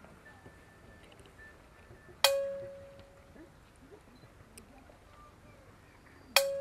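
A metal bell struck twice, about four seconds apart; each strike rings at one clear pitch and dies away over about a second.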